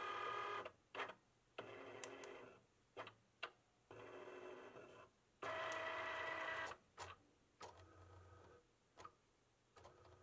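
Cricut cutting machine at work: its motors whir in short stop-start runs as the blade carriage and mat move, with sharp clicks between moves and one longer, louder run about halfway through.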